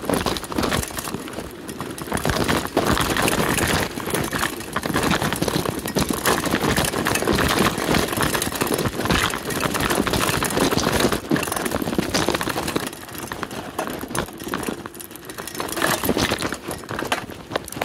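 Mountain bike rolling fast over a leaf-strewn dirt trail: knobby tyres rumbling on the ground while the bike rattles and clatters over bumps.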